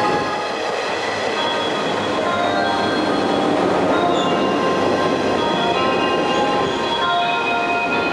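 A JR West 115-series electric train runs past along the platform, its wheels and cars making a steady rumble and rattle, with several high steady tones over it. The rumble thins toward the end as the last car goes by.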